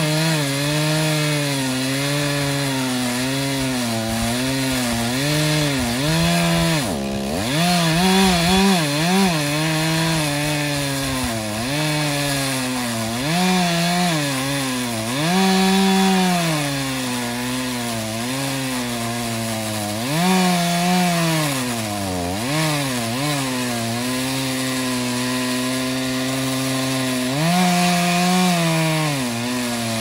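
Chainsaw engine running at high revs while cutting wood. Its pitch sags repeatedly as the chain loads up in the cut, then climbs back, with a couple of deeper drops toward idle.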